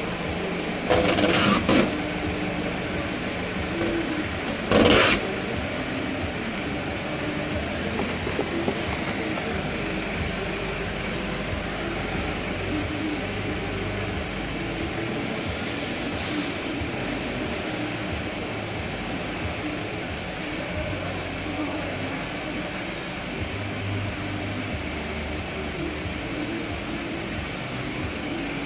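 Steady mechanical running noise, broken by two short, loud bursts of hissing noise: one lasting almost a second about a second in, and one brief burst about five seconds in.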